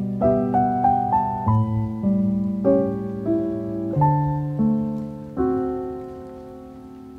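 Background music: slow, soft solo piano, single notes and chords struck and left to ring out. The last chord slowly fades away near the end.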